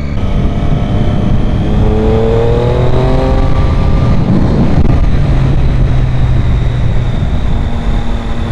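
2013 Triumph Daytona 675's three-cylinder engine accelerating hard through the gear, its pitch rising over the first few seconds, then running steadily at speed under loud wind noise on the microphone.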